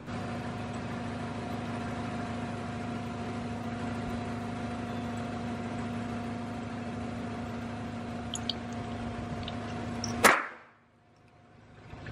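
Car engine idling with a steady hum, then a single loud sharp crack about ten seconds in, after which the sound cuts away abruptly.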